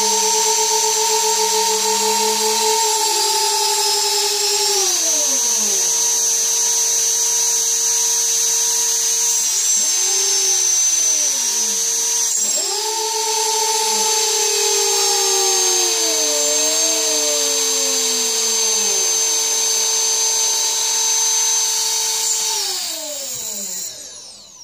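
Brushless motors of a propless FPV racing quadcopter whining as they spin on throttle, with a high-pitched electronic whine over them. The pitch holds steady, winds down after about five seconds, rises briefly twice, holds again, then slowly falls away until the motors stop near the end.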